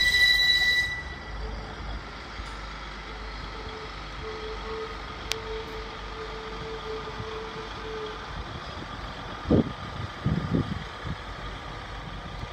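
Class 222 Meridian diesel multiple unit running away into the distance: a high wheel squeal stops within the first second, then a faint steady engine hum fades out about two thirds of the way through. A few low thumps come near the end.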